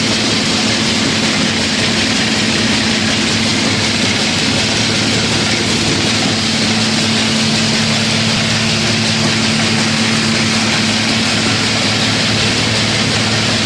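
Flour mill grinder running steadily: a constant low machine hum under a dense grinding hiss, unchanging throughout.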